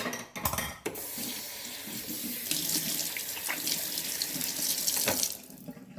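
Water tap running into a sink, with a few knocks as it is turned on, then a steady rush of water that stops about five seconds in.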